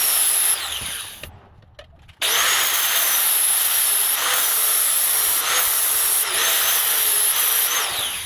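A handheld electric power tool running under load, its high motor whine dipping and recovering as it bites. It spins down just after the start, restarts abruptly about two seconds in, and runs until it spins down again near the end.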